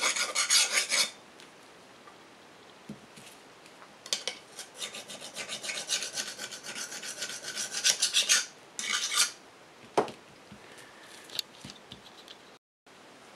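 Small hand-held abrasive stick rubbed in quick back-and-forth strokes along the steel blade of a serrated knife to polish it, a dry rasping scrape. The strokes stop about a second in, start again after a pause and run for about four seconds, with a short final burst, then a single click as the knife is set down on the table.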